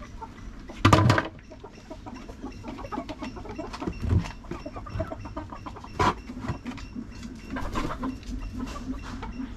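Native chickens clucking, with a loud knock about a second in and a sharper click near six seconds, amid scattered clicks and rustles from a plastic feed bucket being handled at plastic barrels.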